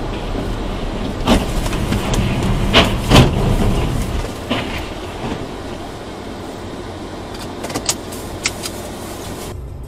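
Road and engine noise inside a moving car, heard through a dashcam, with several sharp knocks, the loudest about three seconds in.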